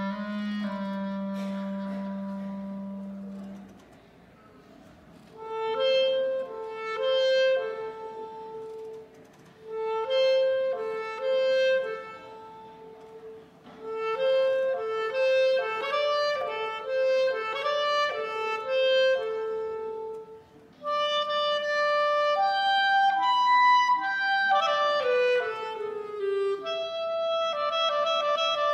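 Solo clarinet playing. A low held note comes first, then phrases of short notes with brief pauses between them, then longer held notes with a quick falling run near the end.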